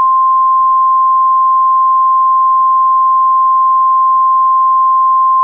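Emergency Alert System attention signal: the National Weather Service's single-frequency 1050 Hz warning alarm tone, one loud, steady, unbroken electronic beep. It is the alert that a weather warning message is about to be read.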